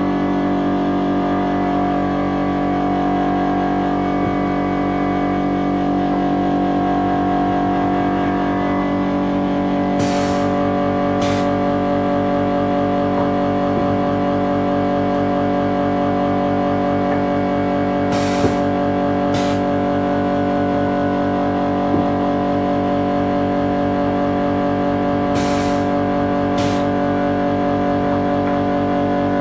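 Automatic LED bulb tikki fitting machine running with a steady mechanical hum. Pairs of short air hisses, about a second apart, repeat every seven to eight seconds, three pairs in all, likely one pair per machine cycle.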